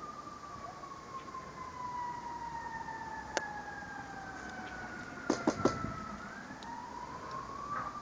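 A distant siren wailing, its pitch slowly falling and then rising again. Sharp clicks cut across it: one about three seconds in and three in quick succession a little past halfway.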